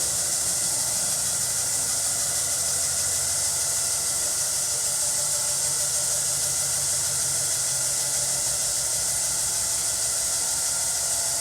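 Steady high hiss with a faint low hum underneath, unchanging throughout and without distinct events.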